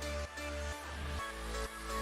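Electronic background music with a heavy bass line that changes note about every half second.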